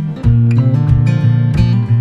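Music: a strummed acoustic guitar playing chords in a steady rhythm, about three strums a second, with a chord change about a quarter second in.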